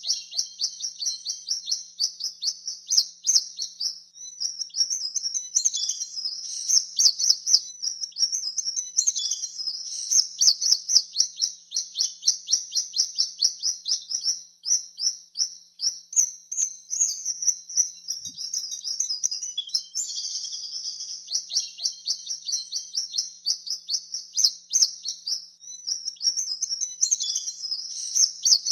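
Swallows twittering: a rapid, unbroken stream of high chirps and twitters, several a second.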